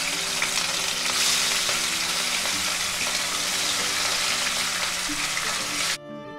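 Pieces of rohu fish deep-frying in hot mustard oil in a kadhai: a steady sizzle as more pieces are laid into the oil. The sizzle cuts off suddenly near the end.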